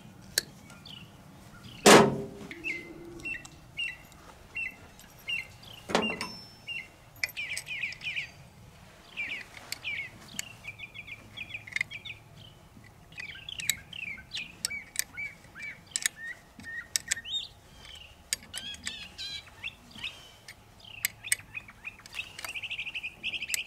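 Songbirds chirping and singing in many short calls throughout. Sharp metallic clicks come from hand tools working a battery cable terminal, the loudest about two seconds in and again about six seconds in.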